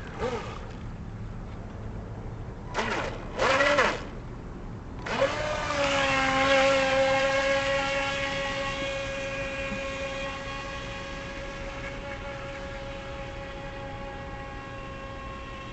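Feilun FT009 RC speedboat's electric motor whining: two short throttle blips, then a rise about five seconds in to a steady high-pitched whine that holds and slowly fades.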